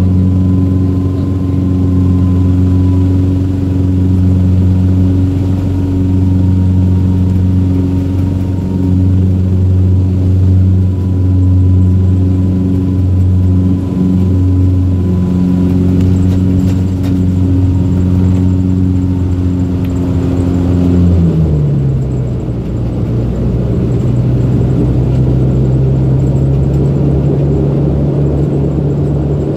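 Cabin drone of a Saab 340's General Electric CT7 turboprop engines and propellers during landing and rollout, a steady multi-tone hum. About two-thirds of the way through the pitch drops sharply to a lower steady hum as power and propeller speed come back on the runway.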